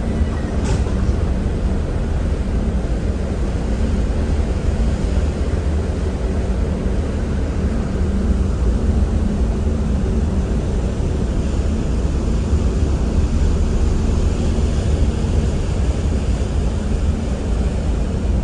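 Steady low drone of a ferry's engines and machinery running, with a hum at a few steady pitches over it.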